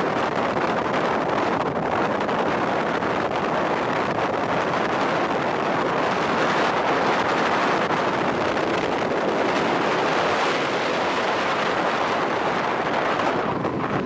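Strong wind blowing across the microphone, a steady rushing noise that does not let up.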